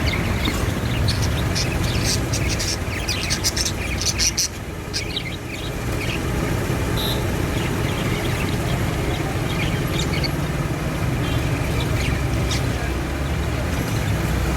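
Young budgerigars chirping in short scattered calls, mixed with brief clicks, over a steady low hum.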